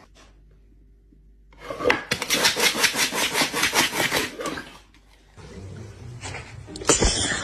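Fast, even rasping strokes, like rubbing or scraping, for about three seconds, followed by a thump near the end.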